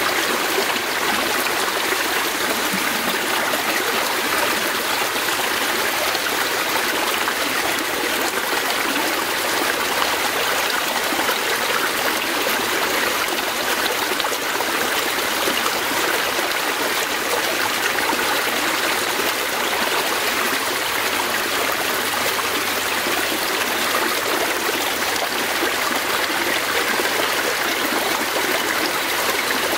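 Fast-flowing forest stream, water running and trickling steadily.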